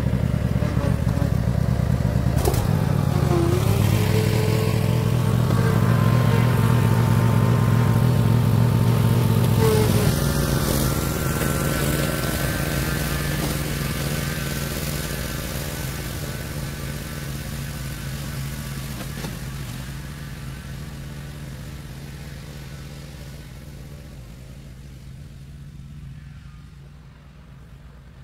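Cub Cadet zero-turn riding mower's engine running loudly, then fading steadily from about ten seconds in as the mower drives away.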